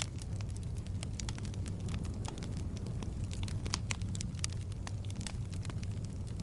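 Logs burning in a fireplace, crackling and popping with frequent sharp snaps over a steady low rumble of flame.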